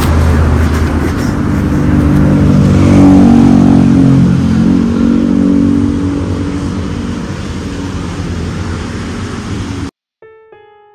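A motor vehicle's engine, growing louder to a peak about three seconds in and then fading away. The sound cuts off suddenly near the end, and soft mallet-percussion music begins.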